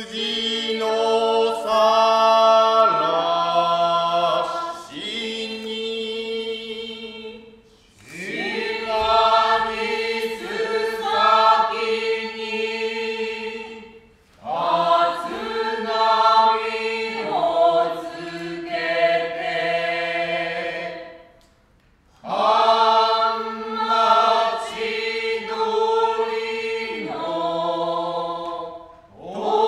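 Kyogen chorus of men and women chanting in unison, in long held notes. The chant comes in four phrases with short breaks for breath between them.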